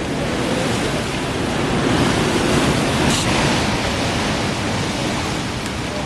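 A strong wind gust from Hurricane Sandy, with rain, swells to a peak about three seconds in and then eases off, buffeting the microphone.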